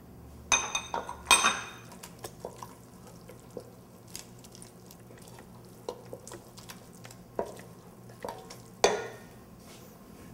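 Wooden spoon stirring risotto in a stainless steel pot, with scattered knocks and clinks of cookware. Two ringing metal clinks come about half a second and a second and a half in, and a sharper knock near nine seconds.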